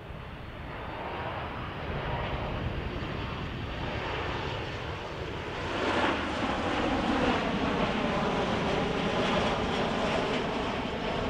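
Jet airliner engines passing close by, growing louder to a sudden swell about six seconds in and staying loud, with a wavering, shifting pitch in the noise as the aircraft goes past.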